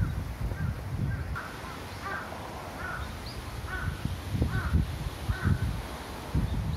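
A crow cawing over and over, about one call every 0.8 seconds, over a low rumble on the microphone.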